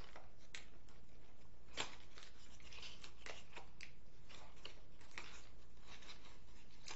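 Blind-box toy packaging being handled and opened by hand: scattered short crinkles, clicks and snaps, with one sharper snap about two seconds in.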